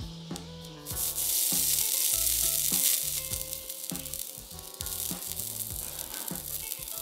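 Soldering flux paste sizzling under a hot soldering iron tip as solder is melted onto a circuit-board joint. The hiss starts about a second in, is loudest for the next two seconds, then goes on more softly.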